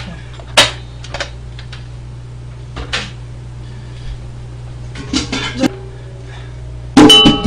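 Metal cookware being handled and set down: a sharp clack about half a second in, a few lighter knocks, then a loud clatter of metal near the end with a brief ringing. A steady low hum runs underneath.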